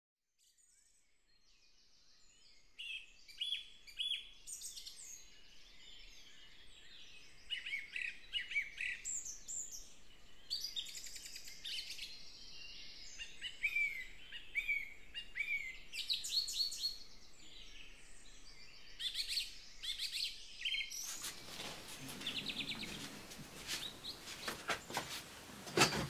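Several songbirds singing and chirping together in a busy chorus of overlapping short calls and trills, fading in at the start. About 21 seconds in, a denser chirping over a louder background hiss takes over.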